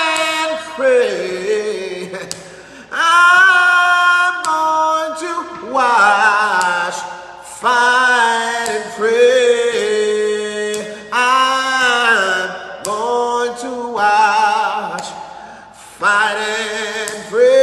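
A man singing a slow gospel song solo and unaccompanied, drawing the words out into long, wavering held notes, in phrases with short breaks between them.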